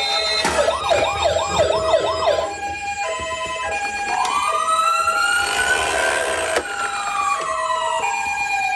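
Electronic sirens of several toy ambulances sounding at once: a two-tone high-low pattern throughout, a fast warbling yelp for about two seconds near the start, and a slow wail that rises and then falls from about halfway.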